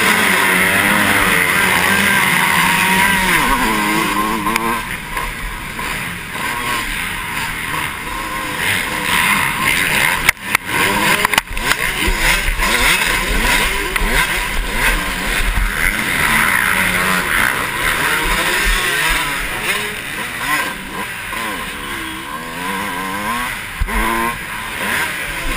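Motocross bike engines held at high revs at the starting gate, then launching off the line about four seconds in. After that the rider's own dirt bike engine rises and falls in pitch through the gears and throttle changes over the track, with other bikes' engines around it, heard from a helmet-mounted camera.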